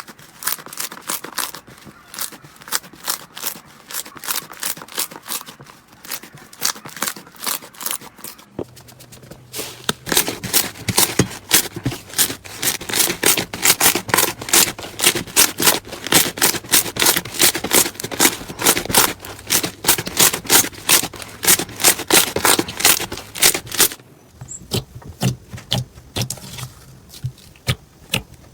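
Slime being squeezed and worked by hand, making a quick, even run of crackling clicks and pops, a few a second. It changes character twice, about a third of the way in and again near the end, as one batch gives way to another.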